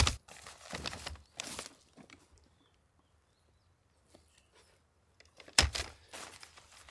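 Crunching of dry fallen leaves and pine needles underfoot as a wooden folding camp chair is carried and set down on them. A few short crunches come at the start, then a lull, then a louder crunch a little past halfway.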